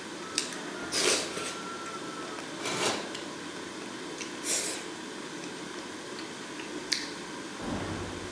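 Someone eating with chopsticks: a few short mouth sounds of eating and a couple of sharp clicks of the chopsticks against the dish, over a steady hiss, with a soft thump near the end.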